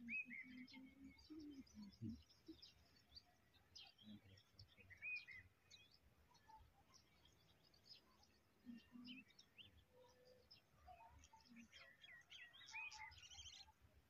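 Faint birds chirping and calling, short high chirps scattered throughout and growing busier near the end.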